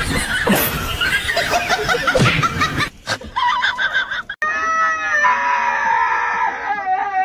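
High-pitched squealing and laughter-like sounds for about four seconds. After a cut, a husky howls while being bathed in a sink: a short arched yowl, then one long drawn-out howl that dips in pitch near the end.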